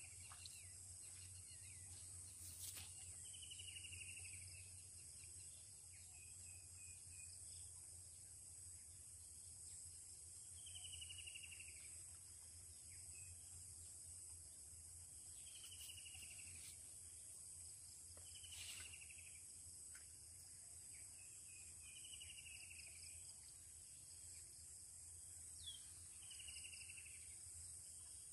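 Faint rural ambience: a steady high insect drone, with a bird repeating a short falling call every few seconds. A few faint clicks stand out now and then.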